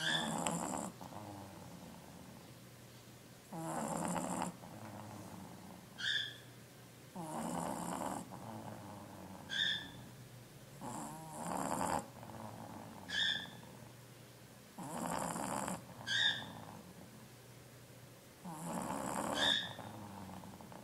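A sleeping pet snoring in slow, regular breaths, about one every three and a half to four seconds, with a short high whistling squeak between snores.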